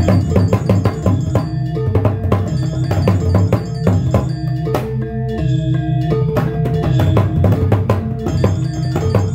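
Balinese kendang drum played with a stick and the bare hand in fast, dense strokes, over a gamelan accompaniment of ringing metallophones in Barong Ket dance music.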